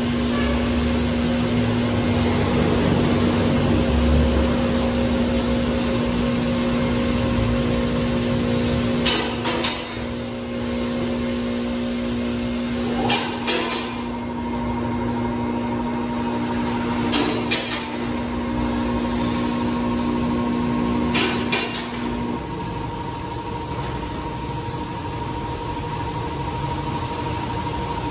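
Electric-hydraulic power unit of a four-post car lift running with a steady hum as the lift raises the car, broken by a few sharp clicks every few seconds, and stopping about two-thirds of the way through.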